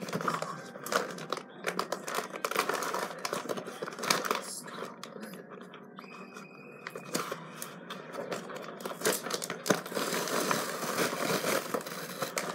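Paper microwave-popcorn bag crinkling and tearing as it is ripped open along the top and pulled apart by hand, with many short crackles.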